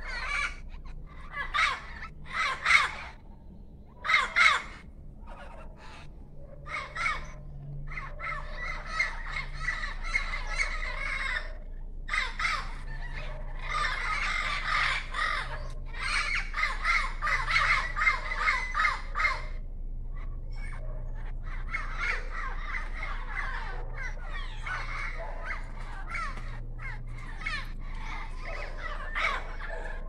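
A flock of wild parrots squawking: a few separate loud calls in the first seconds, then many birds calling over one another almost without a break, with a short lull about two-thirds of the way in.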